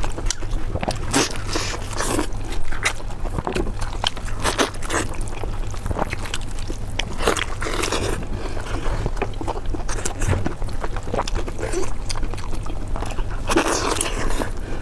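Close-miked eating sounds: chewing and biting into food with many small wet clicks and crackles, over a steady low hum.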